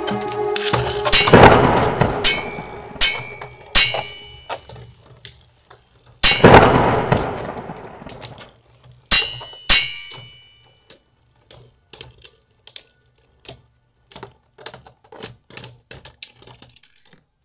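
King Helios and Tempest Dragon Beyblade Burst tops spinning and scraping in a homemade plastic stadium, colliding with several sharp ringing clangs. They end in a run of small clicks that grow fainter as the tops wobble to a stop.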